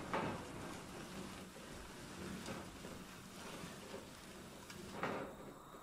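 Tin-clad pallet-wood chicken tractor dragged by rope across grass: a steady rustling scrape, with a louder knock just after the start and another about five seconds in, after which the scraping stops.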